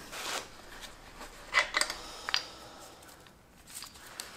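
Faint handling noise with a few light metal clicks about one and a half and two and a half seconds in, as steel main bearing caps from a Ford 302 V8 block are handled and set down.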